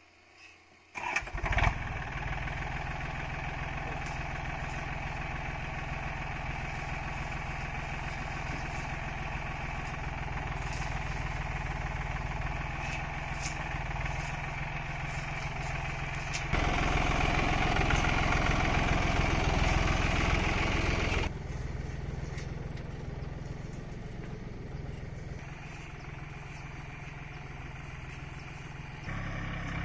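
Yanmar F215 compact tractor's diesel engine, which starts suddenly about a second in and then runs steadily as it works a rotary tiller. It grows louder for about five seconds past the middle, then drops back.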